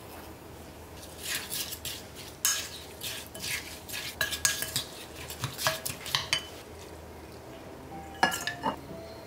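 Kitchen utensils clicking, tapping and scraping against dishes and cookware in a quick irregular run, then a lull and a couple of ringing clinks near the end.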